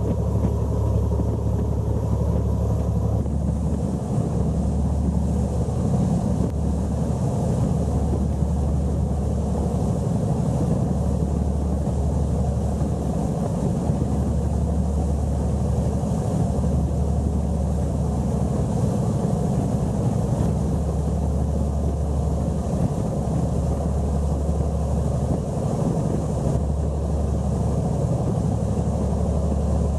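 Speedboat under way: a steady, deep engine drone with a rushing noise over it.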